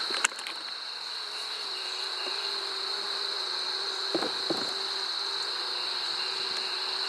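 Honey bees humming steadily around an open hive during a frame inspection, over a steady high insect trill. There is a light click at the start and two soft knocks about four seconds in.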